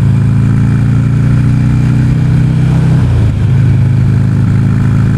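Motorcycle engine running steadily while riding along at road speed, with wind noise on the microphone. The engine note briefly breaks up about three seconds in, then settles again.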